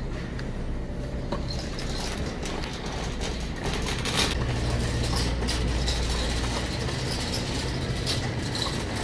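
Wire shopping cart rolling across a hard store floor: a steady low rumble from its wheels, louder for a few seconds past the middle, with light rattling clicks from the basket.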